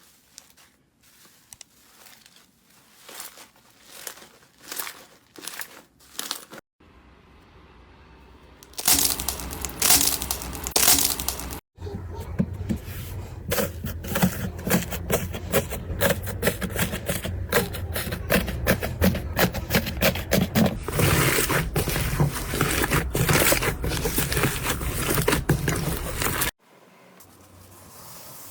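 Slime being squeezed and worked by hand, giving rapid crackling and popping. It comes in several short clips joined by abrupt cuts; the first few seconds are sparse and quiet, and from about nine seconds in the crackling is louder and dense.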